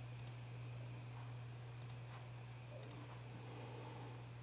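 Three faint computer mouse clicks, spread a second or so apart, over a steady low hum.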